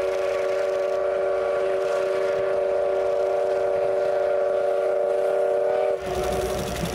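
A train whistle held in one long, steady chord of several notes, with no change in pitch, cut off abruptly about six seconds in. A low engine rumble follows near the end.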